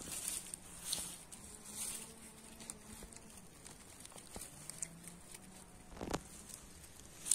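A hand rustling through dry conifer needles and twigs on the forest floor around a porcino, with scattered light crackles and a sharper snap about six seconds in as the mushroom is lifted free of the litter.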